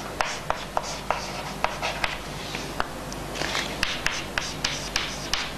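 Chalk writing on a chalkboard: a quick string of sharp taps and short scratching strokes as letters are written.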